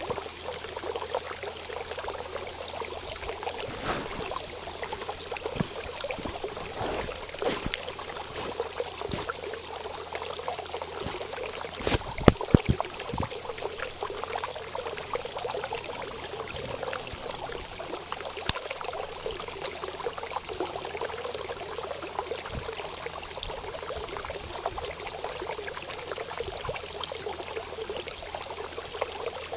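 Running water trickling and pouring steadily, with a few sharp clicks or knocks scattered through it, the loudest about twelve seconds in.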